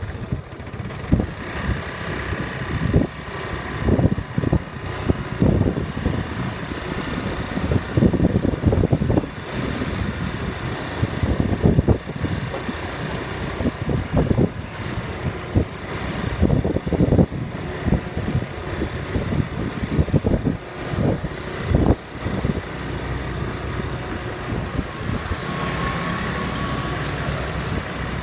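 ATV engine running on the move, with irregular low thumps and buffeting through most of it, settling into a steadier sound for the last few seconds.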